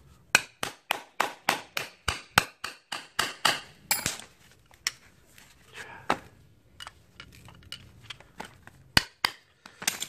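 Hammer blows on the cylinder block of a seized swash-plate car air-conditioning compressor, knocking at the stuck pistons to free them. A quick run of sharp metal strikes, about three a second, for the first four seconds, then a few scattered knocks.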